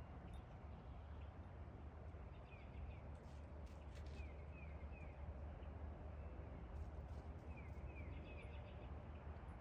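Faint high chirps, short falling notes in groups of three that come three times, over a low steady rumble, with a few soft clicks.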